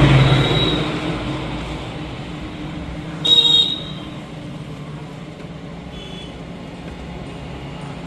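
Road traffic: a motor vehicle passes and fades away, then a short horn toot sounds about three seconds in, over steady traffic noise.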